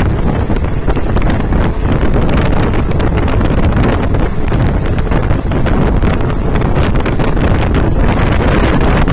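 Wind buffeting the microphone over the steady running rumble of a passenger train moving at speed, heard from on board.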